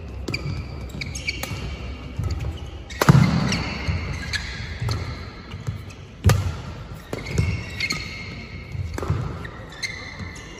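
Badminton rally: racket strings striking the shuttlecock with sharp cracks about every second or so, the loudest about three seconds in and another hard jump-smash hit a little after six seconds. Between shots, sneakers squeak on the synthetic court mat.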